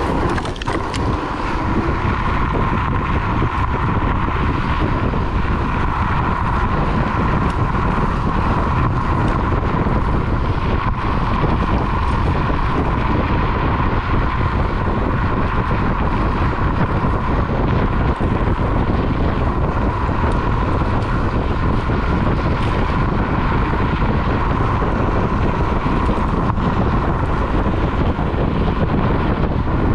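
Electric scooter ridden fast on a dirt trail: wind rushing over the microphone and tyre rumble, with a steady whine.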